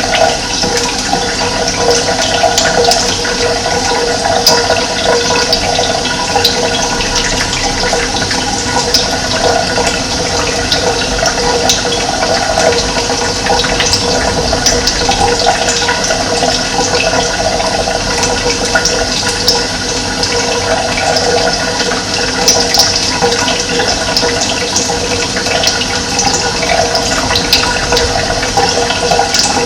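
Running water: a steady, loud rush of flowing water with many small splashes.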